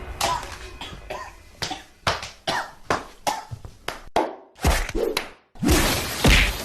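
A person coughing in a run of short, sharp coughs, roughly two or three a second. Sudden cuts interrupt it, with a louder, noisier stretch near the end.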